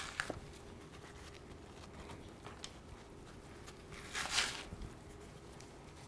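Beef rib membrane being peeled off with a paper towel: faint handling noises and a short papery rustle and tear about four seconds in.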